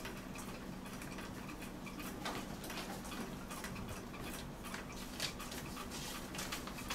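Hand rummaging through folded paper slips in a draw box, then a slip being unfolded: faint scattered rustles and small clicks, over a low steady hum.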